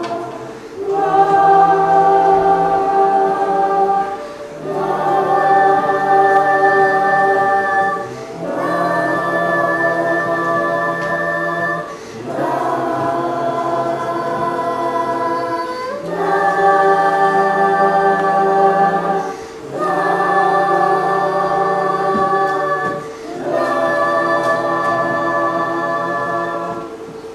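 Children's choir singing sustained chords a capella, in about seven phrases of roughly four seconds each with short breaths between, over one steady held note underneath.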